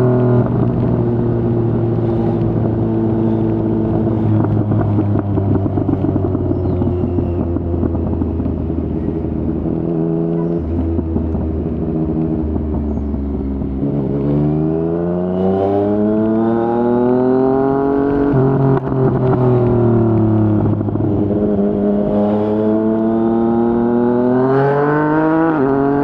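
Yamaha MT-09's inline three-cylinder engine running through a Yoshimura R55 slip-on exhaust under way. It holds steady revs for the first ten seconds, then drops lower. About fourteen seconds in it revs up under acceleration, with a quick drop in pitch at a gear change. The revs fall away again and climb once more near the end.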